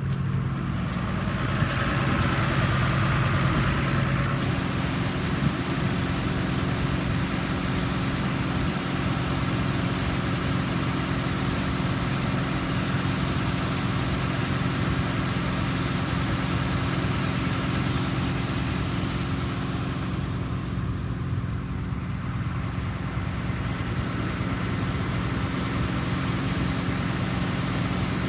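Large farm diesel engine running steadily at a constant pitch, with a broad hiss of machinery over it that grows brighter about four seconds in.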